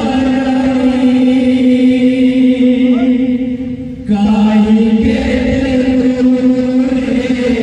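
Kirtan troupe's devotional group chanting in long held notes, with a brief dip just before about four seconds in as the next phrase begins.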